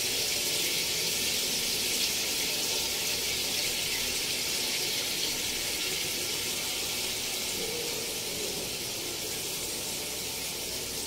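Bone-in beef frying in hot oil with onions in an aluminium pot, a steady sizzling hiss.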